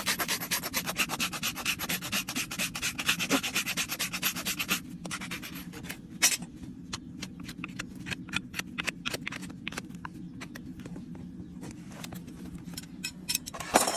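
Farrier's rasp filing a horse's hoof: quick back-and-forth rasping strokes for about five seconds, then slower, scattered strokes, over a low steady hum.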